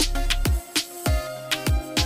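Background music with a beat: a deep kick drum recurring several times, sharp percussion hits and held instrument notes.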